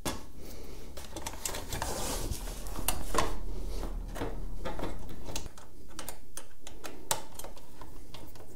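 Irregular small clicks and rattles of hands fitting a nut and lock washer into the bracket of a plastic rear mudguard.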